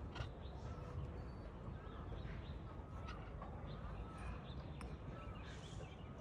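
Outdoor ambience of faint short chirping calls, repeating about once a second, over a steady low rumble, with a few soft clicks.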